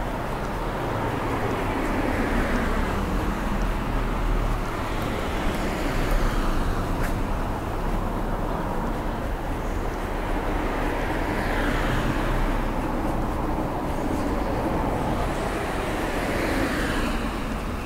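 Road traffic on a town street: cars driving past one after another, the steady tyre-and-engine noise swelling as each goes by, about four times.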